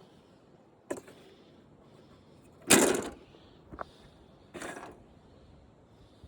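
Parts from a dismantled flat-screen TV being handled and set down: a sharp click about a second in, a loud brief clatter about three seconds in, and a shorter scrape or rustle near five seconds.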